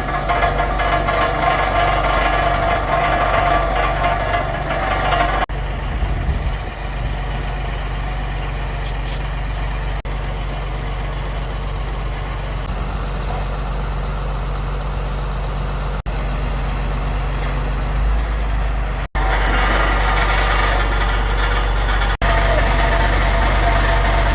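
Forklift engine running steadily at idle, its sound changing abruptly at several points.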